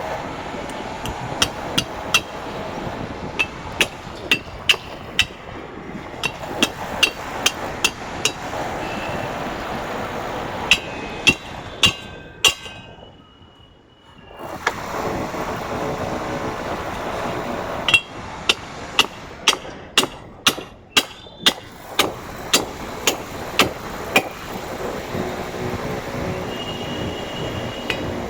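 Repeated hammer blows, about one to two a second, with a short pause near the middle.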